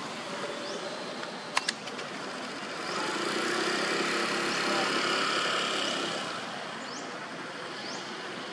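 A car passing on the road: a steady rush of tyre and engine noise that swells from about three seconds in and fades by about six and a half. Two sharp clicks come shortly before, and faint short rising chirps repeat near the end.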